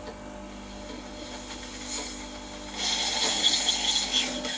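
Rancilio Silvia espresso machine with its hot water tap open: the vibratory pump hums steadily while hot water sputters and hisses out of the steam wand into a glass. The hiss grows much louder about three seconds in, then everything cuts off near the end. This is the after-steaming flush that refills the boiler and brings it back down toward espresso temperature.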